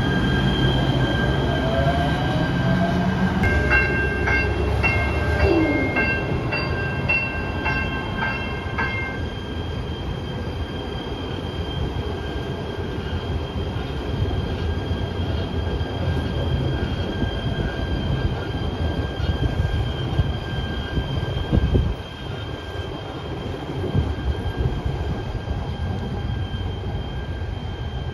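Light-rail train running with a steady high-pitched wheel squeal over a low rumble, the sign of steel wheels grinding on a tight street curve. A rising whine comes in the first few seconds, and a run of quick, evenly repeated beeps sounds from a few seconds in for about five seconds.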